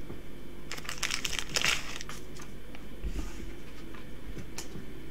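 Thin plastic crinkling in a burst of about a second, starting about a second in, as a trading card is handled with a clear plastic card sleeve; a few light clicks follow.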